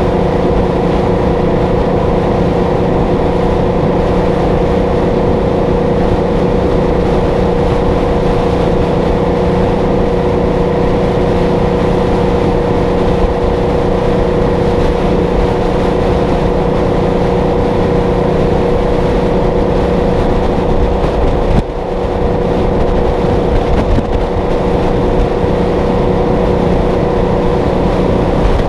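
Detroit Diesel 12V-71 two-stroke V12 of a Kenworth W900A running steadily at highway cruising speed, a constant drone that holds one pitch throughout, over road and wind noise. The level dips briefly about three-quarters of the way through.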